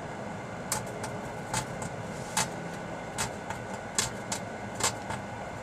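Microwave oven running with a steady hum, while a rechargeable battery inside gives off sharp, irregular snaps and crackles, about seven in all.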